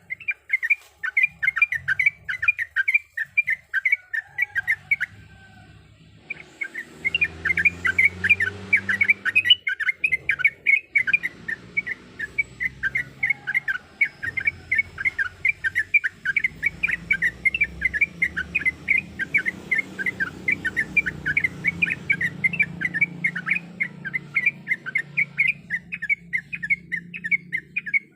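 Yellow-vented bulbul (trucuk) singing a long, fast run of sharp chattering notes. It breaks off briefly about five seconds in, then carries on. A faint low hum lies underneath.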